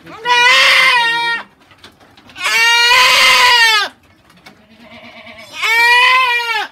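A Boer goat bleating loudly three times, each cry about a second long, while it is held and given an injection in its side.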